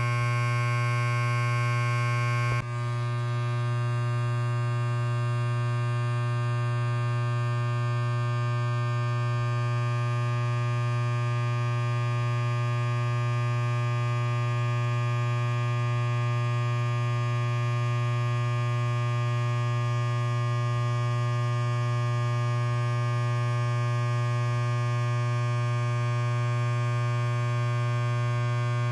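Electric hair clipper running with a steady, even buzz. About two and a half seconds in there is a brief click, and after it the buzz's higher tones are softer.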